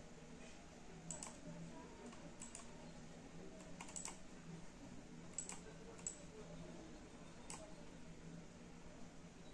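Faint, irregularly spaced clicks from computer input, about ten of them, some in quick pairs, over a low steady hum.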